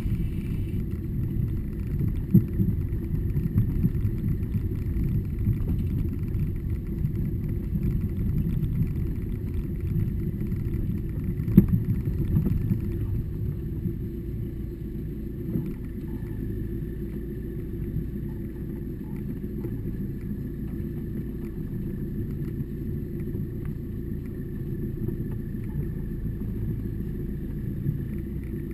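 A car driving slowly over a rough dirt and gravel track, heard from inside the cabin: a steady low engine and road rumble with scattered knocks, the sharpest about 11 seconds in. The rumble eases off about halfway through.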